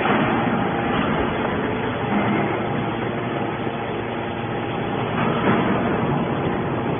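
Hydraulic metal scrap baler running: a steady, dense machinery noise with a faint hum, and a few brief louder surges.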